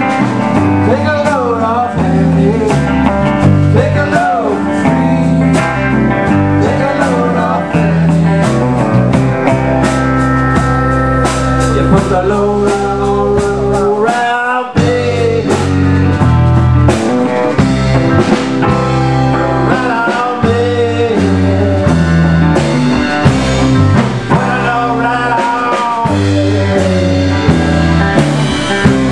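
A live rock band playing a blues-tinged song: electric guitars, bass and drums with voices singing. The bass and drums break off for a moment about halfway through, then come back in.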